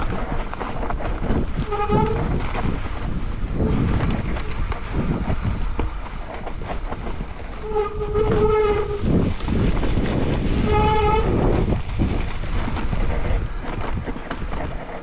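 Mountain bike rolling fast down a rough trail: continuous rumble and rattle, broken by short, honking howls of one pitch about 2 seconds in, a longer one around 8 seconds and another near 11 seconds.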